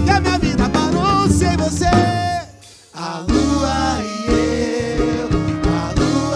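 Live pagode band playing, with melody lines over percussion and bass. The music breaks off briefly about two and a half seconds in, then the band comes back in.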